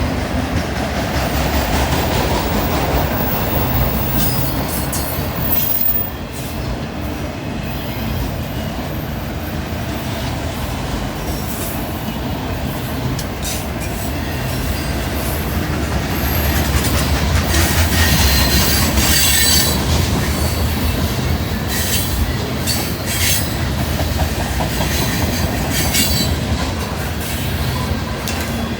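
Freight train cars rolling by: a steady rumble with wheels clattering over the rail joints and short, sharp wheel squeals, more of them in the second half.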